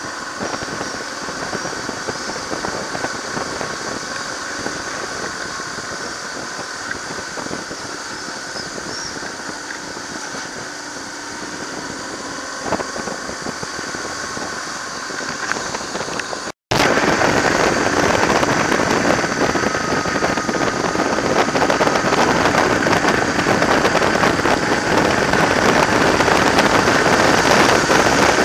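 BMW R1100GS motorcycle's boxer-twin engine running under way, with wind noise on a camera mounted on the bike. About two-thirds of the way through the sound cuts out for a moment, and after that the wind and engine rush is louder and denser.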